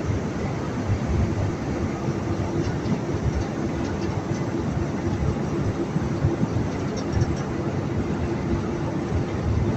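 Cobblestones clattering and knocking in a dense, continuous rattle as they are unloaded from a barge, over a steady machinery hum.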